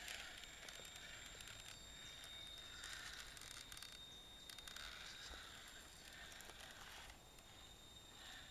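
Faint electric motor and gearbox whir of a Tamiya CC-01 radio-controlled crawler as it creeps over rock. A steady high whine runs throughout, and the whir comes in a few short, slightly louder spells.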